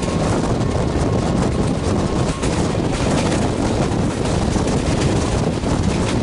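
Express passenger train running past at speed: a steady roar of wheels on rail with rapid clatter, and air buffeting the microphone.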